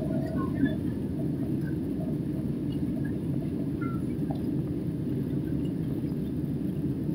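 Steady low cabin roar of a Boeing 777 at takeoff thrust, heard from inside the passenger cabin as it lifts off and climbs: engine and airflow noise.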